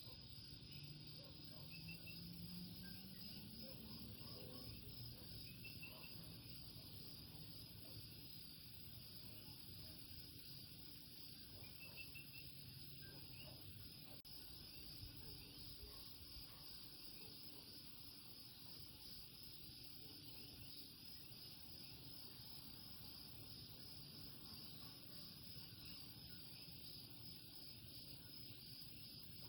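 Faint night chorus of Puerto Rican coquí frogs and insects: a steady pulsing high trill with scattered short chirps over it. A low hum rises briefly near the start.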